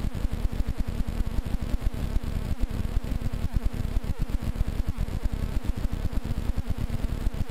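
Powered paraglider trike's engine and propeller buzzing steadily in flight, under a heavy, choppy low rumble of wind on the microphone.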